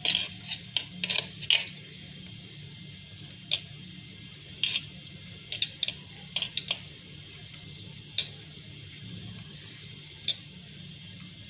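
Hands gathering and pressing minced beef on a plate, with irregular sharp clicks and clinks against the plate, thickest in the first two seconds and scattered after. A steady low hum runs underneath.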